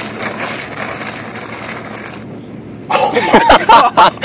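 A steady rushing hiss that cuts off suddenly about two seconds in, then, after a brief hush, a person's loud startled exclamation near the end.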